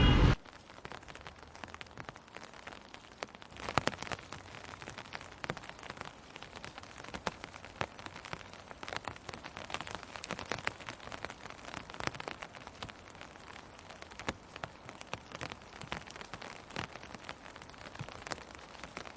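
Steady rain, with many separate drops ticking sharply over a soft hiss. Louder street noise with voices cuts off abruptly at the very start.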